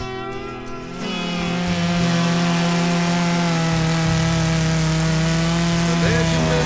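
Chainsaw running at high revs with a steady pitch, coming up to speed about a second in.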